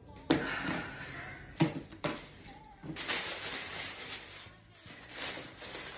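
A few sharp knocks as a cardboard gift box is handled and opened, then tissue paper rustling and crinkling as it is pulled back.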